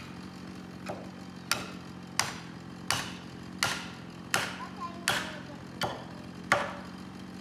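Steady hammer blows driving a felling wedge into the saw cut of a tree trunk: about nine sharp knocks, roughly one every 0.7 s, the first one lighter.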